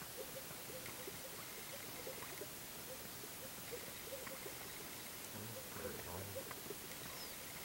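Male greater sage-grouse displaying on a lek: many short, soft notes repeating irregularly, with a louder, lower pair of air-sac pops from a strutting male about five and a half to six and a half seconds in.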